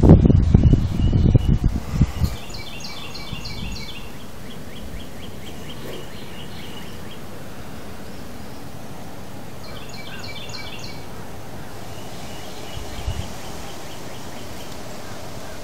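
Low rumbling on the phone's microphone for the first couple of seconds, then a steady outdoor hiss. Over the hiss a songbird sings series of rapid repeated chirps, loudest twice, with softer trills between.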